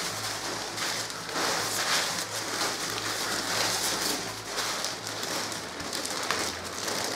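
Crumpled packing paper and plastic bags rustling and crinkling in repeated swells as hands rummage through a cardboard box.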